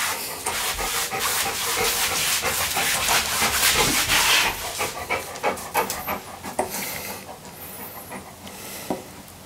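Labrador retriever panting hard while it mouths and tugs on a ball held in a person's hand, with short wet clicks of its teeth and jaws on the ball. The panting is loudest for the first four seconds or so, then eases off.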